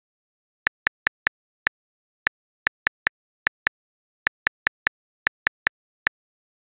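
Simulated phone keyboard typing clicks from a texting-story app: a run of short, sharp ticks at an uneven pace of about three to four a second, the sound that goes with the typing indicator.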